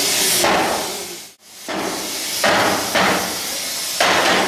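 Sledgehammer blows on a flanged steam-locomotive firebox tube plate during its final straightening: four sharp, heavy strikes spaced about half a second to two seconds apart, each followed by a ringing smear.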